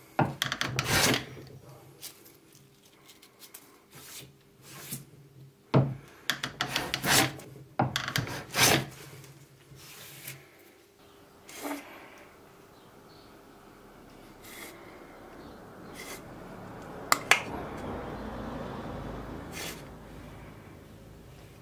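Wood being rubbed down by hand: a series of short, irregular scraping strokes, loudest in the first half. Later comes softer continuous rubbing, with two sharp clicks a little over halfway through.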